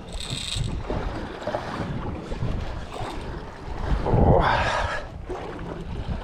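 Wind buffeting the microphone over water noise on a boat at sea, a steady low rumble with a louder rush about four seconds in.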